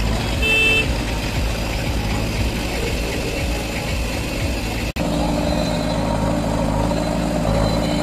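Diesel tractor engine running steadily as a Massey Ferguson 1035 pulls a trolley across soft ploughed ground, with a brief high-pitched tone about half a second in. About five seconds in the sound cuts, and the steady hum of the diesel engines of a JCB 3DX backhoe loader and the tractor running side by side follows.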